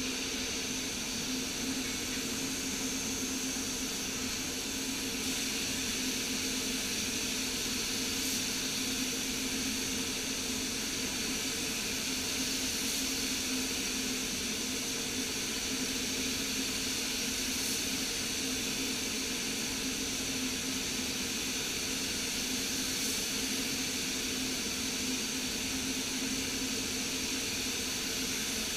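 Paint spray booth's air handling running with a steady hum and hiss, together with the compressed-air hiss of a paint spray gun being used on a car hood.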